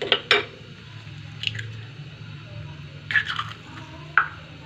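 Eggs being cracked open into a frying pan of melted ghee and sugar: sharp shell cracks in several clusters, the first near the start and the last near the end, over a low steady hum.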